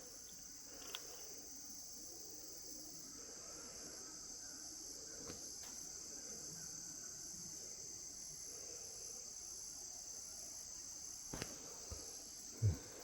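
Steady, high-pitched chorus of insects in the woods, with a few faint clicks and a short low thump near the end.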